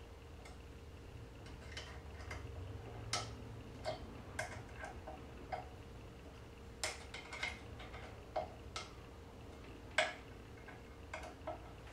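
Irregular small clicks and taps of metal parts being handled as a knob is fitted and set on the top end of a DIY CNC router's Z-axis lead screw, the sharpest one about ten seconds in. A faint steady hum lies underneath.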